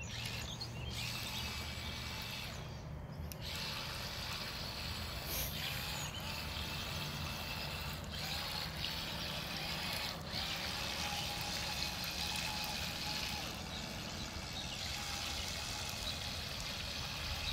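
Cheap toy RC car churning and splashing through shallow water as its wheels spin, a steady trickling, sloshing sound. A faint thin motor whine comes and goes in the middle.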